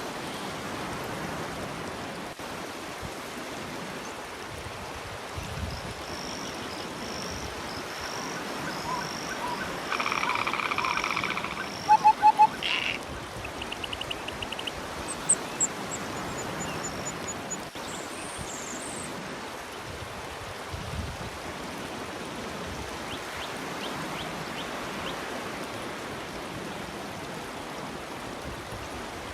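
A steady wash of surf on a seashore. Through the middle a run of short animal calls and chirps sounds over it, loudest as a harsh call with three sharp notes about twelve seconds in, followed by a few high, thin notes.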